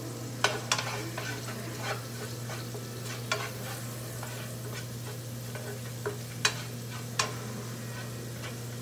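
Minced garlic sizzling in butter in a nonstick frying pan as it is stirred and browned, with several sharp clicks of the utensil against the pan.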